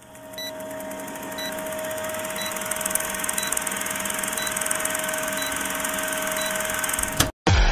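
Old-film countdown leader sound effect: a steady film-projector whirr with a short high beep once a second, cutting off suddenly near the end.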